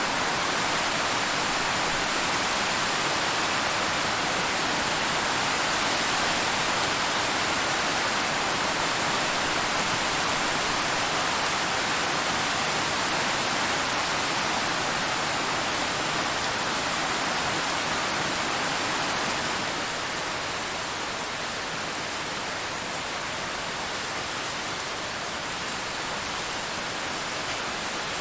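Steady rain heard from inside a car, an even hiss of drops on the roof and glass, a little softer after about twenty seconds.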